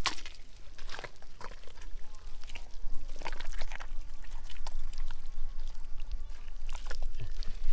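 Wet mud squelching and sloshing as hands dig into an eel hole, in irregular wet slaps and clicks.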